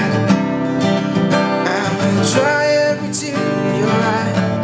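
Acoustic guitar strumming chords in a steady rhythm, playing out the end of the song.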